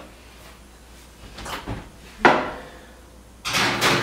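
Kitchen oven being opened: a sharp knock about two seconds in, then a longer metallic clatter as the oven door and rack open near the end, the loudest part.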